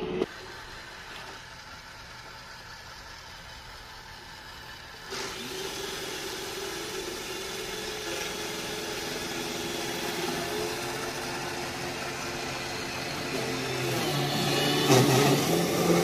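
iRobot Roomba i7+ robot vacuum running, its vacuum fan and brush motors giving a steady mechanical hum. The hum steps up about five seconds in and grows louder near the end as the robot drives onto its Clean Base.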